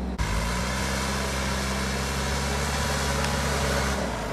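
Backhoe loader's diesel engine running steadily under load as its front bucket digs a pit in the soil.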